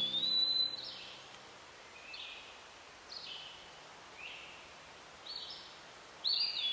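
Small birds calling: short high notes falling in pitch, about one a second, with a longer rising-then-level whistle at the start and again near the end.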